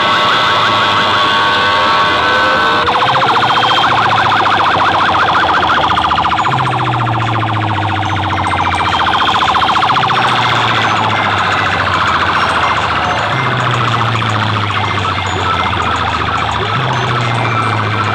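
A DJ competition sound system's bank of horn loudspeakers playing, loud and distorted, a fast-warbling, siren-like electronic effect over a bass line that steps between notes every few seconds.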